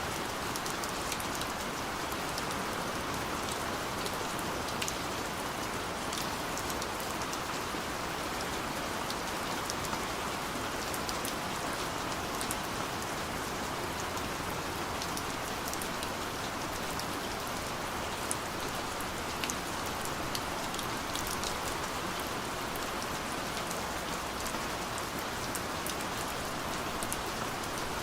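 Steady light rain falling, a continuous hiss with many fine drops ticking on a surface.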